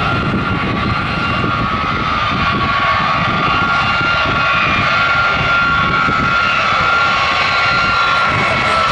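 Boeing B-52 Stratofortress's eight jet engines running as the bomber rolls along the runway: a steady rumble with a high whine on top, slowly growing louder as it comes closer.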